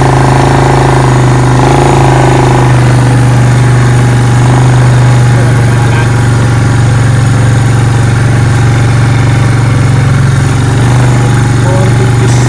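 Farm motorbike engine running steadily at a constant speed, loud and close, with a strong even hum throughout.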